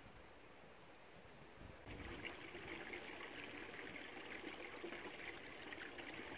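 Faint steady noise of running water, stepping up in level about two seconds in.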